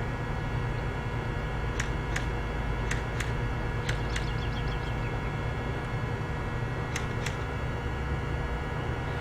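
JG G36C airsoft electric rifle firing single shots: four pairs of sharp clicks, the two clicks of each pair about a third of a second apart, with a quick run of faint ticks after the third pair. A steady low background rumble underlies it.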